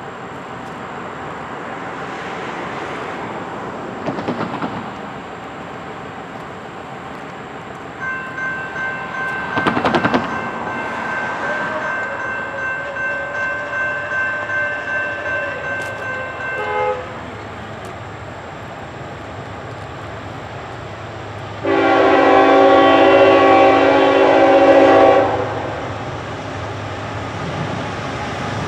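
Air horn of an approaching Norfolk Southern GE ET44AC diesel locomotive: a long, slightly wavering blast from about eight seconds in to about seventeen, a pause, then a louder blast of about three and a half seconds near the end. A low rumble of the train builds underneath as it nears.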